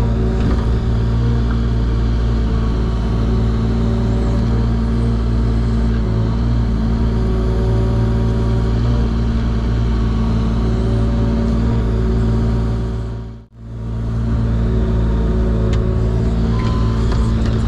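Diesel engine of a compact earthmoving machine running steadily under work. About thirteen seconds in it fades out for a moment and comes straight back.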